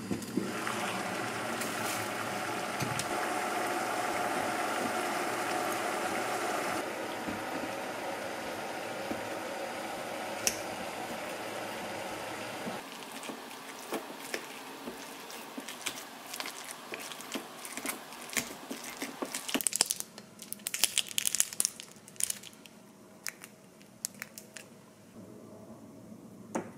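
A steady rushing noise at the stove by the opened steamer pot, dropping away about halfway through. Then a metal spoon mashes steamed kabocha squash in a glass bowl: soft squishing with irregular clicks and scrapes of the spoon on the glass, busiest about three quarters of the way in.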